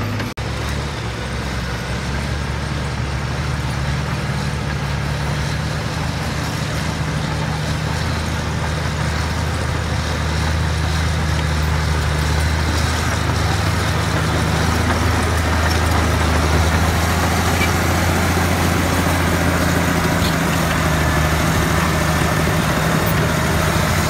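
Diesel engine of a Caterpillar crawler loader running steadily, with a brief break just after the start. It grows a little louder about halfway through.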